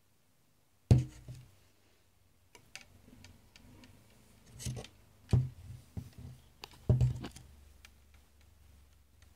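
Handling noise from a plastic bottle on a wooden table: a sharp knock about a second in, then a short scrape, further knocks and bumps, and light rustling and ticking between them.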